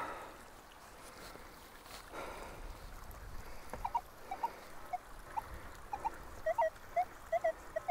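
Metal detector giving short, irregular beeps over a target, starting about halfway in and coming faster near the end: a jumpy signal.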